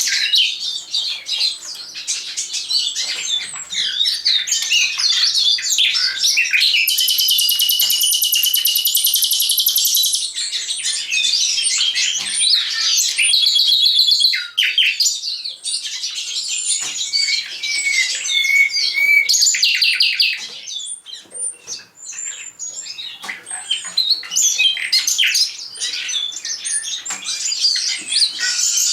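Common nightingale and Eurasian skylark singing together, their songs overlapping in an unbroken stream of high trills, whistles and chattering phrases. A long, rapid trill runs from about a quarter of the way in, and the singing thins briefly about two-thirds through.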